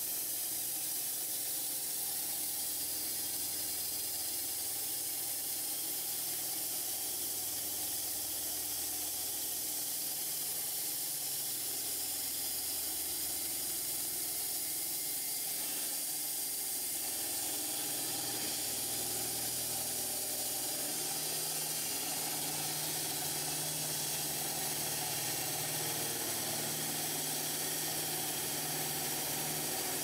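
Band sawmill blade cutting lengthwise through a pear log, a steady hiss over the hum of the mill's motor. The hum grows stronger about two-thirds of the way through.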